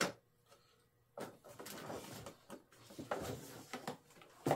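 Foam and plastic parts of a model airplane's tail being handled, with irregular rubbing and scraping, opened by a sharp click and with another click near the end.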